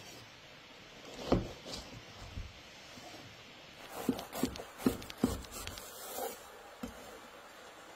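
Large knife cutting through a crusty bread sandwich on a wooden cutting board: the crust crunches and rasps under the blade, with several short sharp knocks, most of them bunched in the second half.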